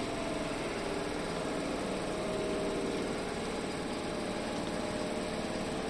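Shizuoka Railway 1000 series electric train standing with its power on, its onboard equipment giving a steady mechanical hum.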